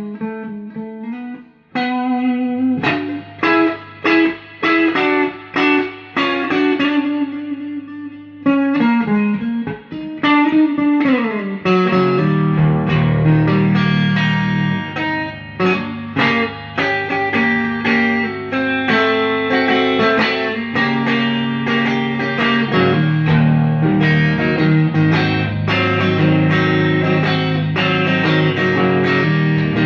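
Fender Stratocaster on its bridge pickup, played clean through a Fender DeVille and a Fender Blues Junior with reverb. Picked notes and short chords with brief gaps, then a sliding fall in pitch, and from about twelve seconds in, continuous fuller chords with a strong bass.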